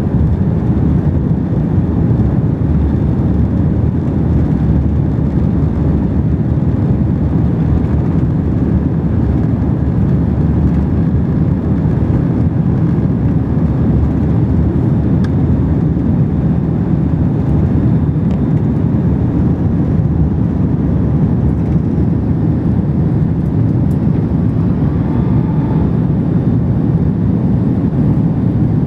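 Cabin noise inside an Airbus A330-200 in flight shortly after takeoff: a steady, deep rumble of jet engines and rushing air.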